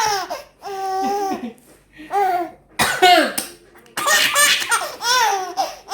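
A baby laughing hard in repeated bursts of high-pitched belly laughter.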